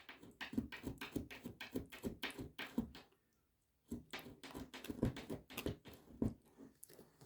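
Four-week-old sphynx kitten licking and smacking at kitten food paste: quick wet clicks, about four a second, in two runs with a short pause about three seconds in.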